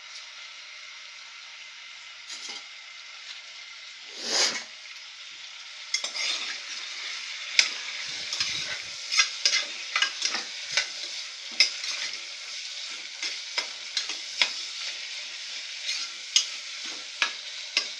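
Mutton pieces sizzling in hot sesame oil in a pressure cooker, with a loud surge of sizzle about four seconds in. From about six seconds in, a spoon scrapes and knocks against the pot as the meat is stirred and sautéed.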